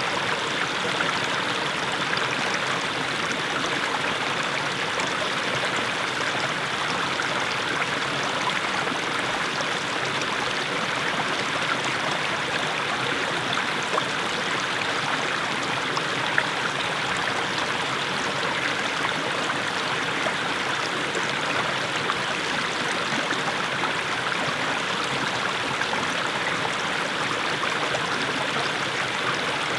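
Small mountain stream babbling steadily as it splashes over low steps of mossy stones.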